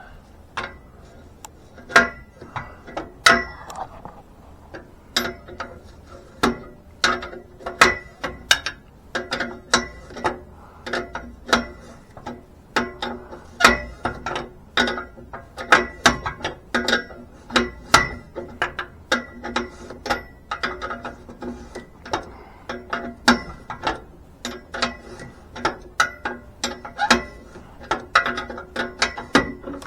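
Ratchet wrench clicking in short runs of strokes, sharp metallic ticks with a slight ring, as a seized oxygen sensor is worked loose from the exhaust pipe.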